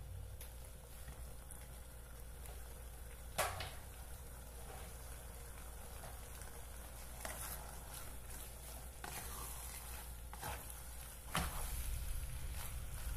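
Pasta in a cream sauce faintly sizzling in a pot while a wooden spoon stirs it, with soft scraping. There are two sharp knocks, one a few seconds in and one near the end.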